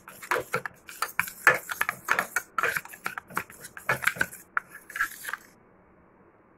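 Metal spoon scraping and clinking against a steel bowl as it stirs a wet paste, in quick irregular strokes that stop about a second before the end.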